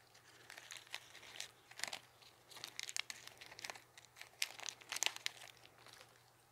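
Clear plastic candy packaging crinkling as it is handled, a run of irregular sharp crackles that stops shortly before the end.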